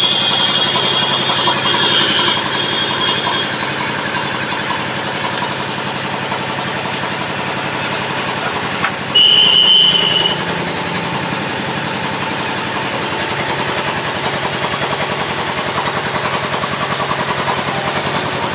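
An engine runs steadily throughout, with two brief high-pitched tones over it. The first fades out a few seconds in. The second, about nine seconds in, is the loudest moment.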